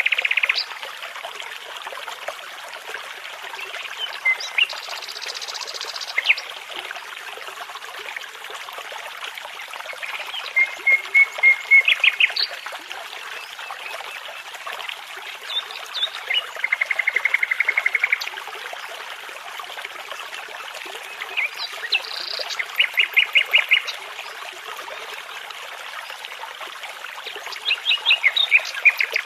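Songbirds singing in short phrases of rapid repeated notes and trills every few seconds, over the steady rush of a babbling brook.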